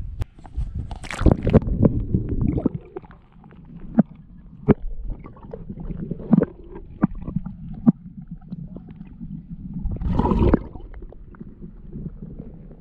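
Water splashing as a largemouth bass and the camera are plunged into a pond, then the muffled, rumbling sound heard with the microphone underwater, broken by scattered sharp clicks and knocks. Another surge of rushing water noise comes about ten seconds in.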